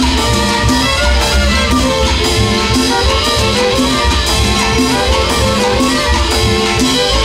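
Live Latin string band playing an instrumental passage: violins carry the melody over plucked guitars, upright double bass, congas and drum kit, with a steady bass pulse.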